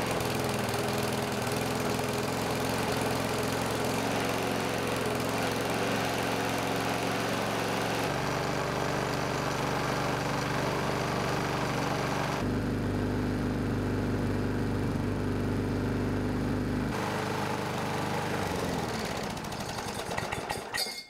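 A walk-behind lawn mower's small four-stroke, splash-lubricated single-cylinder engine running steadily on 10W-30 detergent oil. Its tone shifts abruptly a few times.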